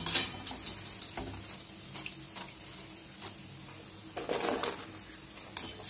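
Vegetable Manchurian balls deep-frying in hot oil in a steel kadhai, a steady sizzle, with a few light metal clinks of a wire strainer against the pan in the first second. About four seconds in the sizzle briefly swells louder as a fresh batch of raw balls slides from a plate into the oil.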